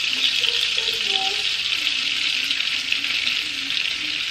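Butter sizzling steadily as it melts in a small frying pan.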